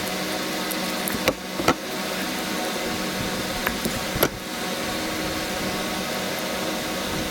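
Steady mechanical hum with a few sharp clicks, twice close together about a second and a half in and once more near the middle.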